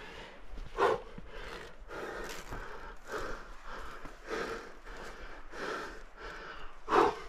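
A climber breathing hard from the exertion of climbing: a steady run of breaths under a second apart, with two louder, sharper exhalations about a second in and near the end.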